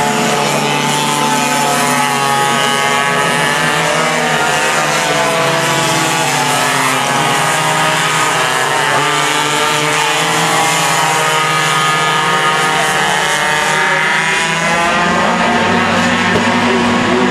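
Several racing go-kart engines running hard on track, with several overlapping engine notes. Their pitch keeps rising and falling as the karts accelerate and lift off through the corners.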